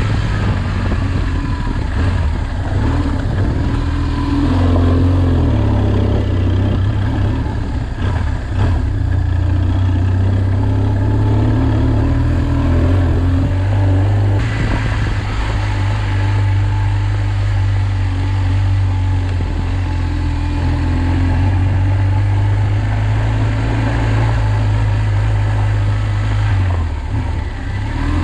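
Tractor engine running steadily under load while pulling a plough, with small shifts in pitch about five seconds in and again near the end.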